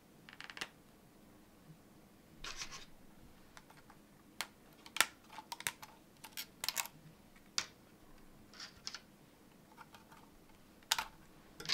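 Small 3D-printed plastic parts clicking and scraping as they are handled and worked on a printed kit card, in scattered light clicks with a few short scratchy scrapes.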